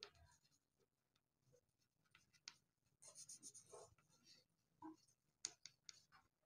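Faint scratching of handwriting, with a longer stretch of writing about three seconds in and a few small clicks around it.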